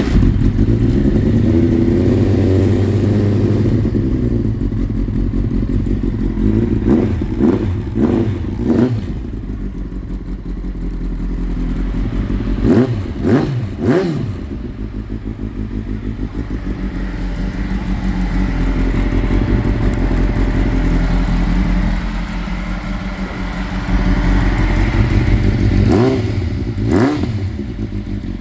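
Kawasaki ZX-9R inline-four motorcycle engine running just after starting, with short throttle blips in three quick clusters: a third of the way in, about halfway, and near the end. It runs without the clicking it had before, fuel flowing again.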